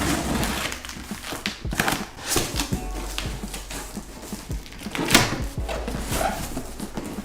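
Cardboard box being opened and unpacked by hand: irregular rustling, scraping and knocks, the loudest about five seconds in.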